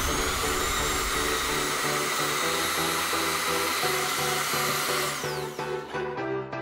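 Mini bench drill press motor spinning up with a rising whine, running steadily while a fine bit drills a small water inlet hole in a metal pump block, then winding down about five seconds in. Background music plays throughout.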